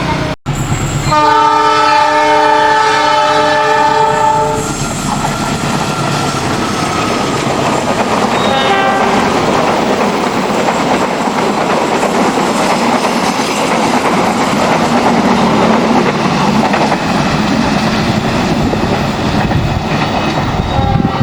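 A diesel locomotive's multi-tone air horn sounds one long blast of about three and a half seconds, the long warning horn (semboyan 35) that trains give here. The train then rolls past with a steady rumble and wheel clatter on the rails, and another horn starts right at the end.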